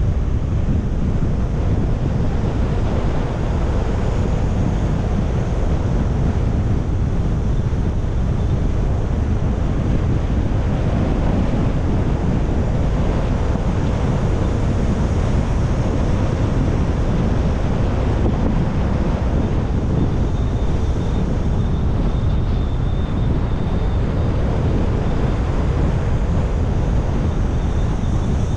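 A car driving along: steady road and wind noise, heaviest at the low end and unbroken throughout.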